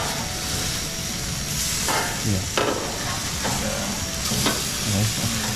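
Fish fillets sizzling on a gas grill's grate, with sharp clicks and scrapes of a metal spatula and tongs from about two seconds in as the fillets are turned.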